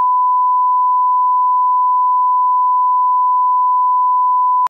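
Broadcast line-up test tone: a single steady, pure beep held at one unchanging pitch, cutting off abruptly at the very end.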